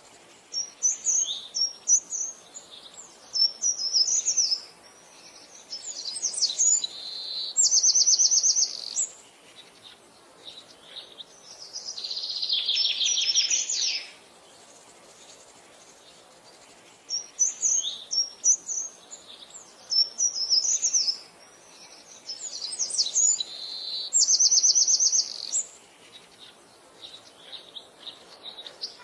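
Birdsong: a long phrase of quick high chirps ending in a fast, high trill, sung twice about sixteen seconds apart, with a lower rapid trill in between.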